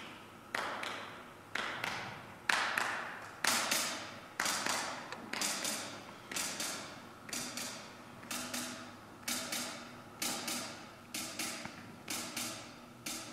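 A steady pulse of sharp percussive strikes, about one a second, each ringing out in a reverberant church hall. A faint low sustained tone joins about halfway through.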